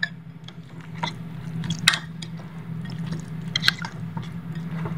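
A spoon stirring a soft, wet spice paste of butter, cream and chopped herbs in a bowl, with squelching and a few light clicks against the bowl. A steady low hum runs underneath.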